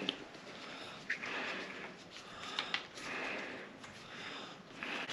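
Breathing through a MIRA Safety CM-6M full-face gas mask, a hissing breath about every one and a half to two seconds. A few sharp clicks come from the helmet and chin straps being handled, two of them close together a little over halfway through.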